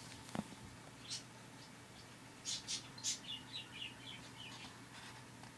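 Small bird chirping: a few sharp high chirps about two and a half seconds in, then a quick run of twittering notes.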